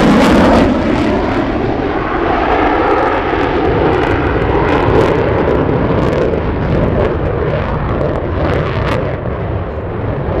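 A USAF F-35A Lightning II's single Pratt & Whitney F135 afterburning turbofan, loud jet noise as the fighter banks hard with afterburner lit. The high hiss fades about a second in, leaving a steady rumble with a slowly wavering tone and a few crackles.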